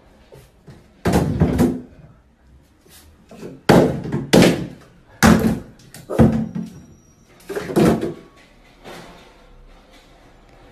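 Plastic toiletry bottles being knocked off a bathtub ledge by a small puppy and dropping into the empty tub, about seven loud knocks spread over several seconds with smaller taps between them.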